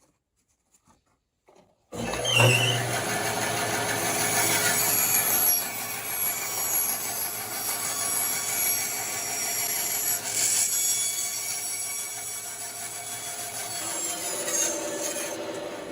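Bandsaw running and cutting through wood, starting suddenly about two seconds in with a steady motor hum under the hiss of the blade, then dying away near the end.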